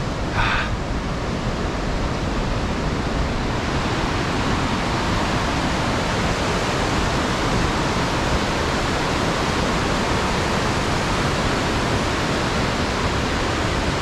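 Steady rushing of a waterfall, an even wash of water noise with no breaks, growing slightly stronger about three seconds in.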